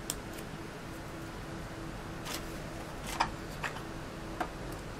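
Light plastic clicks and taps, about half a dozen spread unevenly, from handling a Tecsun PL-368 pocket shortwave radio and working its battery compartment. Under them runs a faint low hum that pulses evenly.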